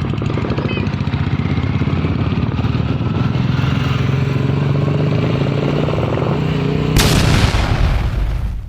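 Royal Enfield Bullet 350's single-cylinder engine running through a long aftermarket Punjab-style silencer with a steady rapid thump. About seven seconds in, a sudden loud burst cuts through and fades over about a second and a half.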